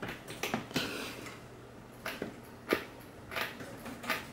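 Soft, scattered clicks and rustles, about half a dozen spread unevenly, of hands handling a 3D-printed plastic foot under a 3D printer's frame and pressing the frame down onto it.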